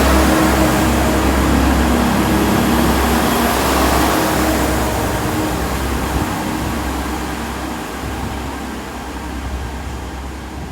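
Diesel train engine running as the train moves off, its rumble and rushing noise steadily fading away.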